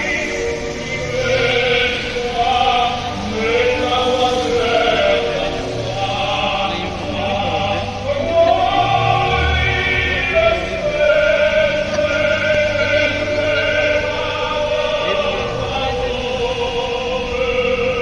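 Music with a choir singing long, held notes.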